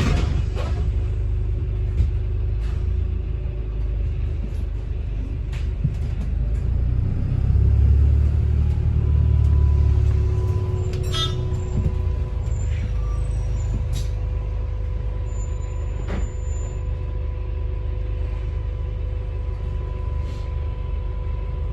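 Cabin of a moving double-decker bus: a steady low rumble from the drivetrain and road that swells for about three seconds around eight seconds in. Scattered short clicks and rattles, a cluster of them about eleven seconds in, and from about halfway a faint steady whine.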